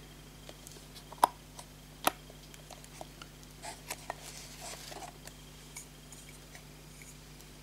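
Plastic clicks and handling noise from a small solar LED light's plastic housing being turned and fingered: two sharp clicks, about one and two seconds in, then a few lighter clicks and rustles.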